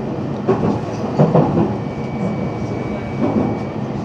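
JR 313 series electric train running, heard from the front of the leading motor car: steady running noise with a few wheel clacks over rail joints in the first second and a half, and a thin steady whine for about two seconds in the middle.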